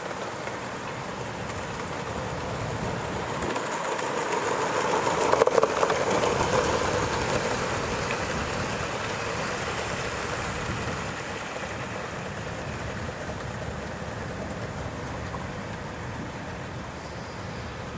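Model train of a locomotive hauling open mineral wagons running past on the garden track, its wheels rumbling on the rails. It swells to its loudest about five seconds in, with a few sharp clicks, then slowly fades as it moves away.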